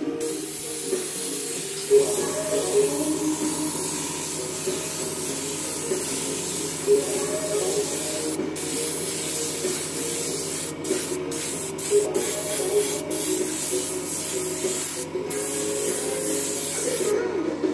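Airbrush hissing steadily as it sprays paint, breaking off for a moment several times in the second half and stopping just before the end.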